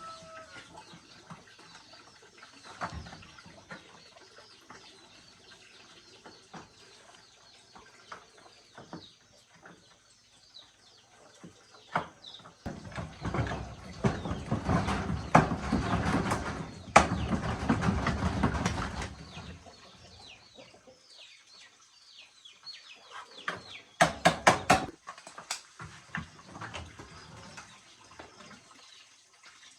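Birds calling, chickens among them, with short chirps throughout. A loud rough noise runs for about six seconds in the middle, and a quick run of sharp clicks comes later.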